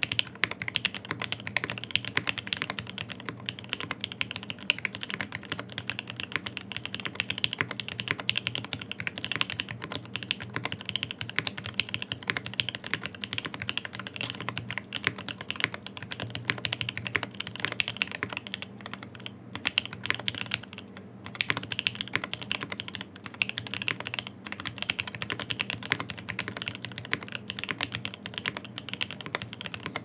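Fast, continuous typing on a Typ65+ prototype custom mechanical keyboard fitted with OP Black switches on MP68 springs, an FR4 plate, gasket and top mount, and GMK keycaps. The keystrokes come as a dense stream of clacks, with a couple of brief pauses a little past the middle.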